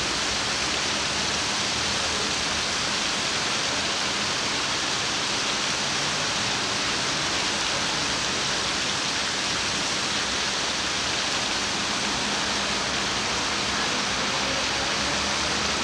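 Fountain water splashing into its basin: a steady, even rush of water with no changes.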